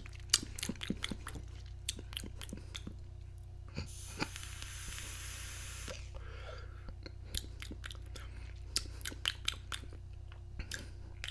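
Vape being hit: scattered small clicks and crackles, with a steady hiss of air drawn through it lasting about two seconds near the middle.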